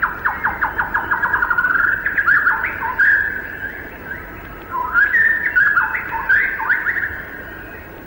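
White-rumped shama (common shama) singing: a rapid run of short falling notes, then varied whistled phrases, a brief lull, and a second burst of whistles that fades near the end.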